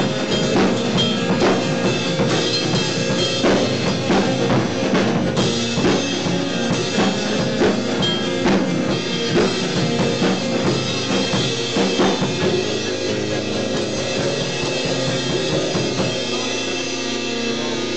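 A post-rock band playing live at full volume: a drum kit beating steadily under guitar and bowed violin.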